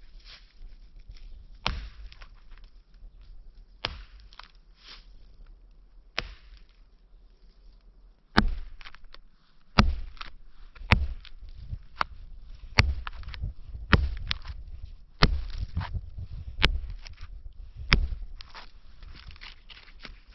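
Hatchet blade striking into the bark of a fallen birch log, cutting a line along it: in the second half, sharp chops come about once a second, nine in all. Before that there are only a few soft knocks and the rustle of dry leaves.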